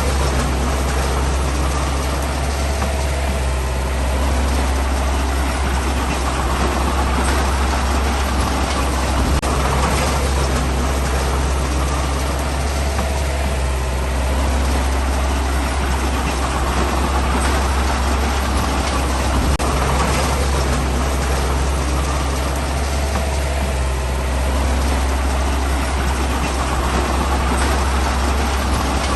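Heavy diesel engine of road-building machinery running steadily, with a strong low drone and a noisy mechanical rumble over it.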